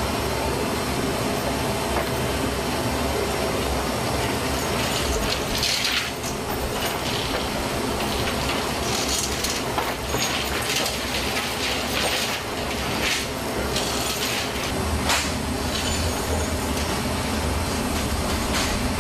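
Steady loud machinery rumble, with sharp metallic clanks now and then from about five seconds in, as an AH-64 Apache helicopter is pushed up a cargo aircraft's metal loading ramp.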